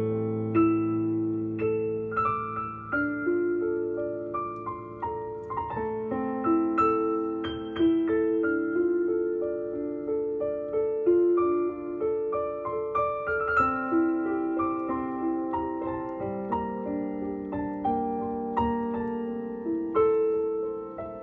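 Background piano music: a slow melody of held notes over a low accompaniment.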